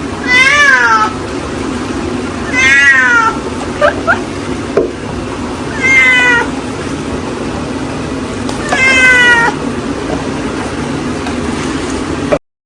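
Domestic cat meowing: four long meows about three seconds apart, each rising then falling in pitch, over a steady low background hum.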